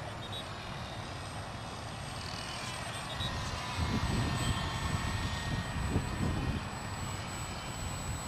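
Electric motor and propeller of a small foam RC airplane whining overhead as it flies past. Wind buffets the microphone with low rumbling gusts in the middle.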